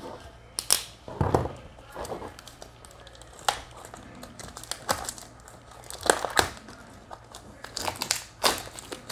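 Flashlight packaging being opened by hand: crinkling, rustling and tearing of the wrapping, with irregular sharp clicks and snaps.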